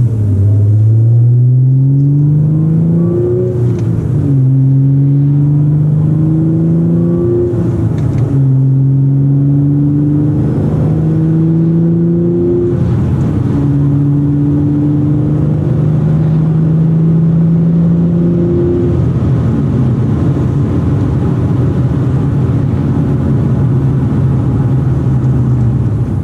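Audi S4 B8 facelift's supercharged 3.0-litre V6, tuned to Stage 2+ with an X-pipe exhaust and APR intake, accelerating hard, heard from inside the cabin. Its note climbs and drops back at each upshift, about 4, 8 and 13 seconds in, then holds a steady drone at cruising speed.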